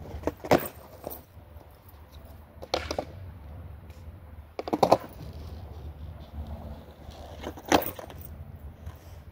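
Skateboard deck clacking against concrete in about five sharp, irregularly spaced knocks during trick practice, over a steady low rumble.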